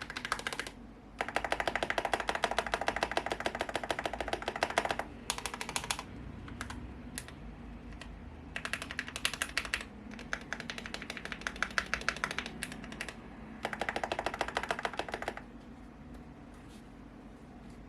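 Fast typing on a GMMK Pro mechanical keyboard with Akko CS Ocean Blue tactile switches and PBT keycaps: runs of rapid keystrokes broken by short pauses, thinning to a few scattered keypresses over the last couple of seconds.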